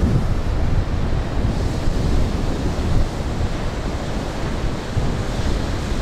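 Wind rumbling on the microphone over the steady wash of Baltic Sea surf breaking on the shore.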